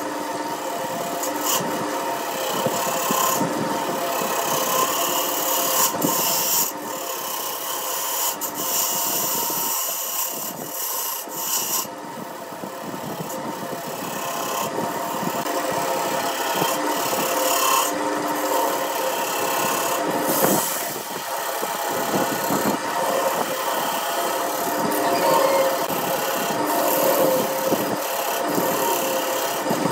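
Wood lathe running with a gouge cutting a spinning wooden blank: a steady motor hum under the rasping, scraping hiss of the cut, which swells and dips as the tool moves across the work.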